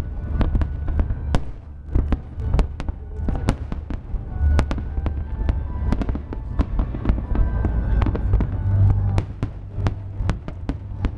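Aerial fireworks display: a dense, irregular run of sharp bangs and cracks from bursting shells, several a second, over a continuous low rumble.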